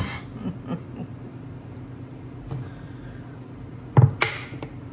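Knife cutting through a stick of frozen butter onto a wooden cutting board: faint small taps, then one sharp knock of the blade hitting the board about four seconds in, with a lighter one just after.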